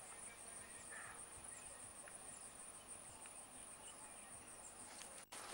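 Insects chirring in grassland: a faint, steady high-pitched trill with a fast regular pulse. It breaks off briefly near the end.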